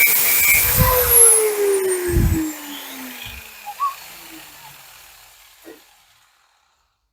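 Angle grinder cutting metal, released about a second in; the motor winds down with a steadily falling whine and a few knocks, fading out over several seconds until it stops.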